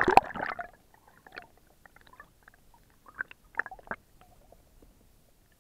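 Water heard through a camera held under the surface: a loud burst of water noise at the very start, then scattered faint bubbling pops and gurgles, with a small cluster of louder pops a little past the middle.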